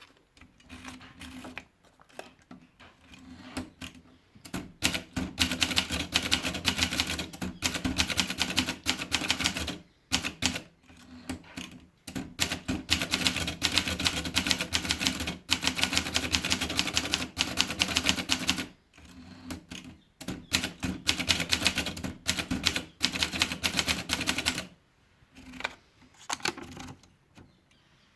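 Underwood 18 typewriter being typed on: fast runs of key strikes lasting several seconds each, broken by short pauses, with slower scattered strikes at the start and near the end.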